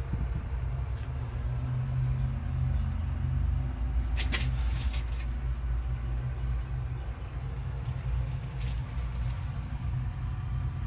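Steady low rumble, with a short rustling scrape about four seconds in.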